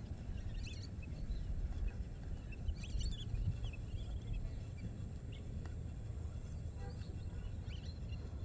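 Outdoor ambience: a few short bird chirps over a steady low rumble and a constant thin high-pitched whine.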